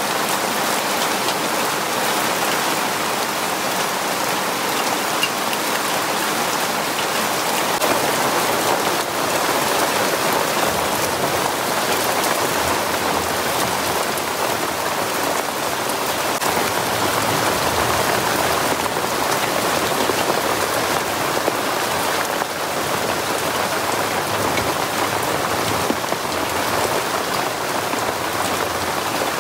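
Steady monsoon rain falling on trees and surfaces, a dense, even wash of sound that holds constant throughout.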